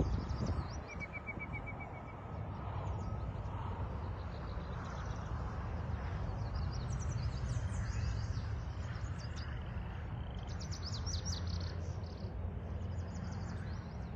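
Several songbirds singing, with high-pitched chirps and quick trills repeated throughout and a short rapid trill about a second in, over a steady low rumble.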